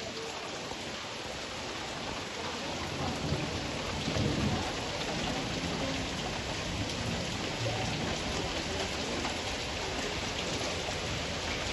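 Heavy rain falling steadily. A low rumble swells and fades about three to four seconds in.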